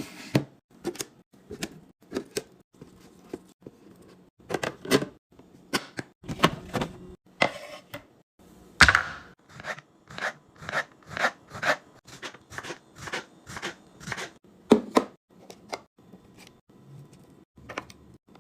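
Groceries and containers being handled and set down while a fridge is restocked: a steady run of short knocks, clicks and taps, with one louder knock that rings briefly about nine seconds in.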